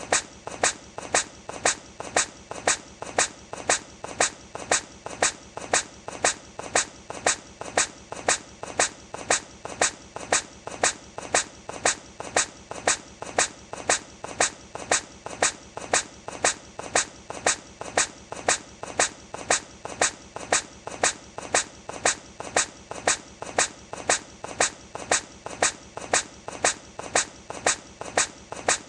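A hedgehog sneezing again and again in an even loop, a short sharp sneeze about every two-thirds of a second, each with a softer sound just before it.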